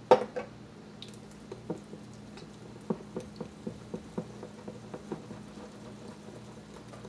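Wire whisk stirring pancake batter in a glass bowl: soft wet squishing with light, irregular taps of the whisk against the bowl. A sharp click comes right at the start.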